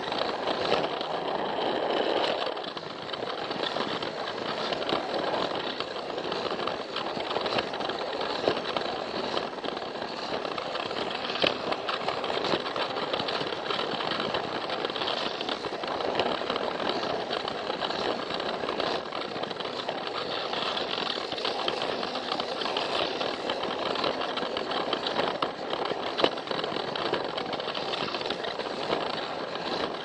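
Battery-powered Plarail toy train running along plastic track, its small motor and gears whirring steadily, with an occasional click as it passes over the track joints.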